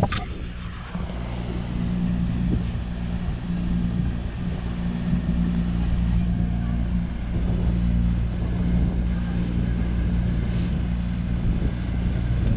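Motorboat engine running at a steady speed, a low even hum with wind noise over it.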